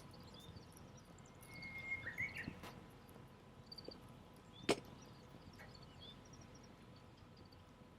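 Campfire of damp firewood crackling with scattered small pops, and one sharp, loud pop a little before five seconds in. A brief high whistling comes about two seconds in.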